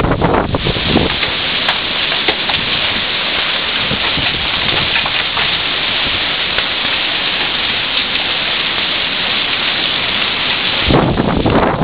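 Heavy rain mixed with small hail pouring down onto a concrete driveway and lawn in a steady, loud hiss. About a second before the end, wind gusts start buffeting the microphone with a low rumble.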